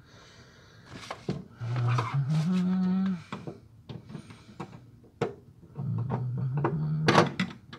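A man humming two short phrases of held notes that step upward in pitch, with a few sharp clicks of wires and connectors being handled at a car's fuse box in between.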